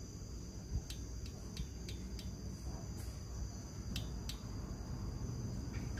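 About nine light, irregularly spaced clicks from hand tools working the valve rocker and adjuster of a Honda GX50 four-stroke engine while its valve clearance is being loosened and reset. A steady high insect trill runs behind.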